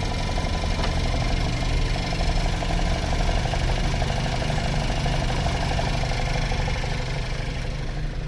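Skoda Kodiaq's 1.4 turbo petrol four-cylinder idling with a fast, rhythmic knock, which the owner puts down to the flywheel and which goes away when the gearbox is put in drive. The knock fades about seven seconds in, leaving the plain idle.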